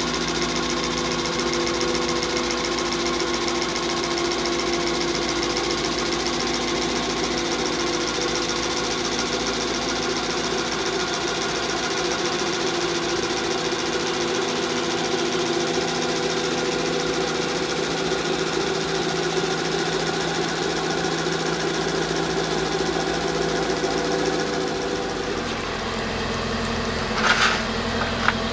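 The engine of an aquatic weed harvester boat running steadily, an even mechanical hum. A few seconds before the end the sound changes and there is a brief sharp noise.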